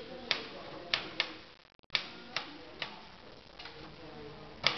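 Typewriter keys struck one at a time at an uneven pace, about eight sharp clacks, with a brief gap of near silence about two seconds in.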